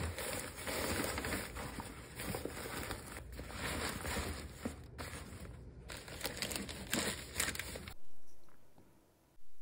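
Close-up rustling and crinkling of clothes and bag fabric as hands stuff clothing into a bag, with many small crackles and light knocks. It stops suddenly about eight seconds in, leaving a much quieter room.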